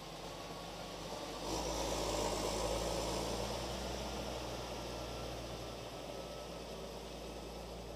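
Claas tractor engine running as it pulls a loaded manure trailer close past, getting louder about a second and a half in and then slowly fading as it moves away.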